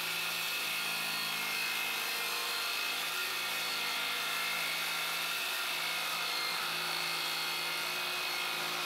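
Electric palm sander running steadily while pressed against a wall sheathing panel, an even motor hum with a sanding hiss.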